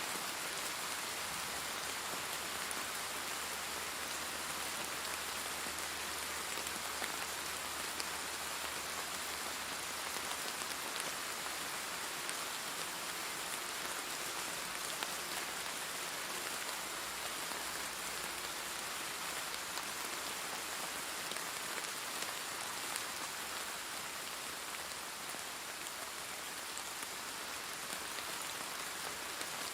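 Steady rain falling, a continuous hiss with fine patter of drops on a surface.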